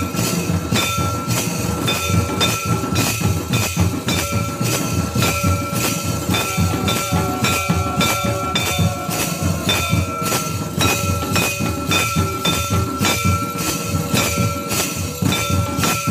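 Santali folk drumming on barrel drums with hand cymbals, a fast, even beat of drum strokes with a steady metallic ringing over it.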